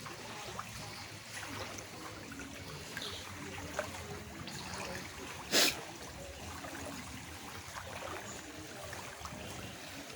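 Floodwater running and trickling steadily, with a single sharp thump about halfway through that is louder than anything else, and a lighter click a little before it.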